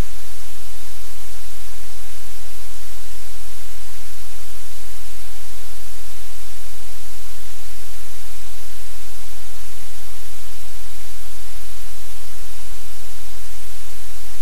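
Loud, even static-like hiss over a deep steady hum, with no change in it.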